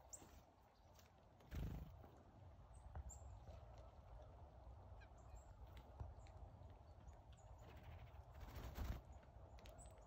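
Near silence: faint outdoor ambience with a soft low thump about one and a half seconds in and a brief rustle near the end.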